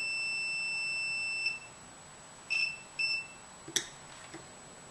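Digital multimeter continuity beeper checking a capacitor. A steady high beep cuts off about a second and a half in, then come two short beeps and a sharp click. The long beep is the capacitor reading as a short while the meter charges it, then going open: the sign of a good capacitor.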